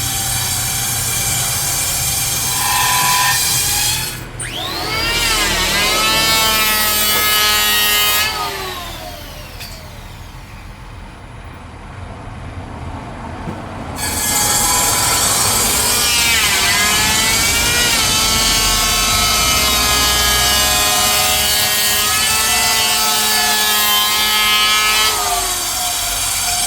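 Electric woodworking power tool cutting Bayur wood in two spells. Its whining motor rises and falls in pitch, winds down about eight seconds in, and starts up again about fourteen seconds in.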